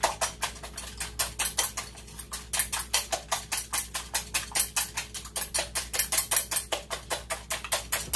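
Eggs being beaten with a metal whisk in a ceramic bowl: fast, even strokes, about five a second, the wires clicking against the bowl.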